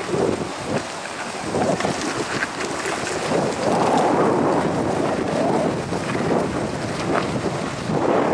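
Wind buffeting the microphone in uneven gusts, loudest about four seconds in.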